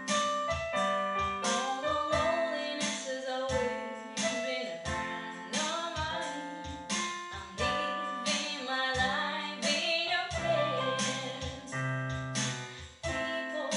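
A woman singing a pop song while playing chords on a digital piano, the chords struck in a steady rhythm under her voice.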